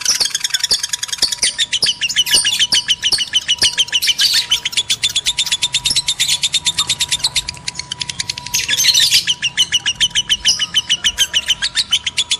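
Lovebirds in breeding condition chattering in a rapid, unbroken run of high chirps, about seven a second, with denser bursts of calling twice.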